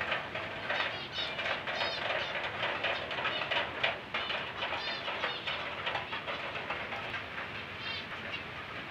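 Many small cage birds chirping and chattering together, with short high calls overlapping continuously.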